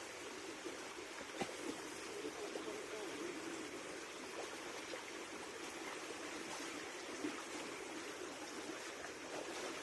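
Steady running water, a continuous babbling wash with a few small clicks.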